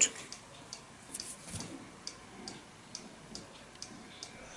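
Faint, steady ticking of a clock in a quiet room, a little over two ticks a second. Soft handling rustle from a pair of glasses being put on, about a second and a half in.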